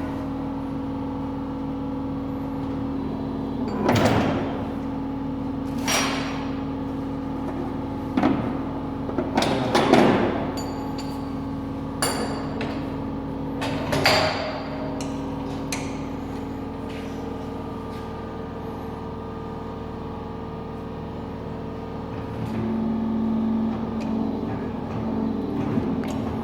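Workshop machinery running with a steady, tonal hum, broken in the first half by about six sharp metallic knocks and clanks that ring briefly. Later the hum shifts in pitch twice, the second time getting louder and rougher near the end.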